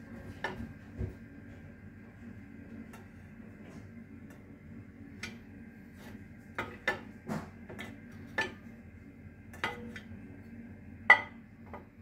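Ceramic dinner plates clinking and knocking against each other in a dishwasher rack as they are tilted by hand: about a dozen scattered sharp clinks, the loudest near the end.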